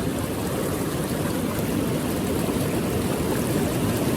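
Rapids of Popa Falls on the Okavango River, water rushing steadily over the rocks close by.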